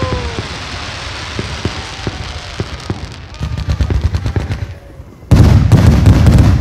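Aerial fireworks bursting: a run of rapid crackling pops about three seconds in, then a much louder, dense crackling burst from a white crackling shell starting about five seconds in.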